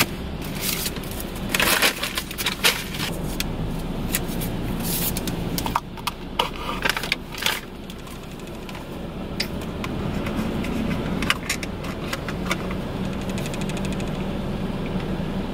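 Clicks, crinkles and scrapes of a plastic drink cup and straw being handled, the straw worked into the lid of a frozen Coolatta, over a steady low hum; near the end she sips through the straw.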